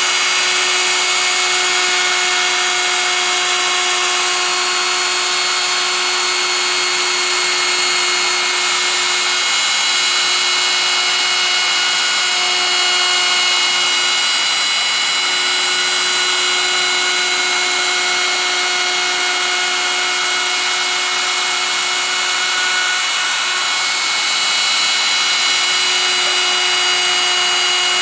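Electric plunge router running at full speed, its bit cutting grooves into a wooden board: a steady high motor whine over the hiss of the cut.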